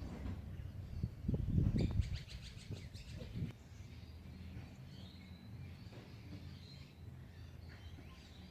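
Wind rumbling on the microphone with birds chirping; a stronger gust comes about a second in, followed by a quick rattling run of bird chatter.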